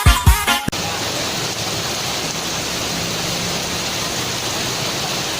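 Steady hiss of heavy rain falling during a storm. Beat-driven music plays for the first fraction of a second and then cuts off abruptly.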